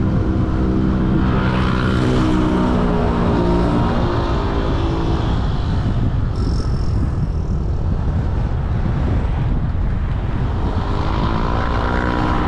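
Road traffic during city driving: a steady low rumble with the drone of vehicle engines, swelling in the first few seconds and again near the end as vehicles pass close by.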